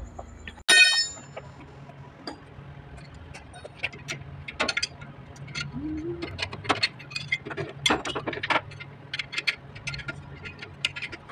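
Steel combination wrench working the bolts and nuts of a flange-type check valve: a sharp metal clank that rings briefly under a second in, then a run of quick, irregular metallic clicks and clinks as the nuts are tightened.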